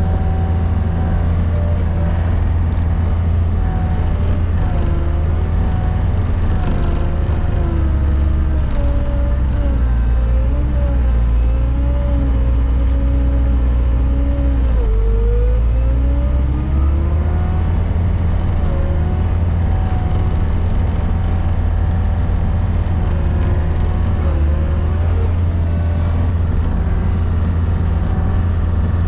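Gehl RT65 tracked skid steer's diesel engine running steadily under load while pushing deep snow, a loud low drone with a higher whine from the machine that wavers up and down in pitch. About halfway the whine dips and then recovers.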